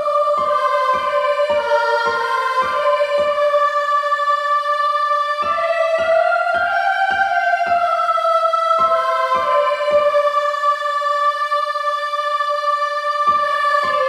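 Instrumental background music: sustained keyboard or synthesizer notes carrying a melody over a steady soft pulse of about two beats a second. The pulse drops out twice and the held notes carry on alone.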